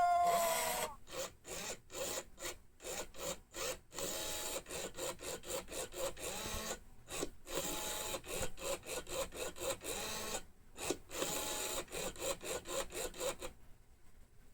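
Quick, rhythmic rasping scrapes, several a second with brief gaps, running in short runs and stopping about a second before the end.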